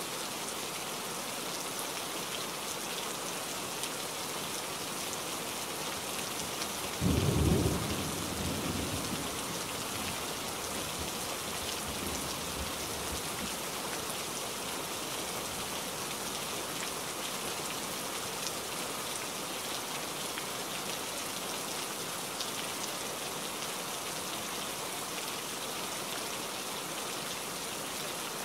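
Steady rain falling on leaves, with a low rumble of thunder about seven seconds in that fades over two or three seconds.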